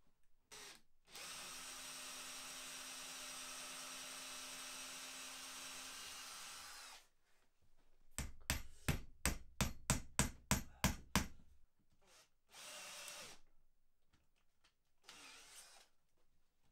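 A power drill runs steadily for about six seconds. Then a wooden mallet drives a wooden dowel into a pine strip with about a dozen quick, sharp blows, roughly four a second, followed by a short further burst of the drill.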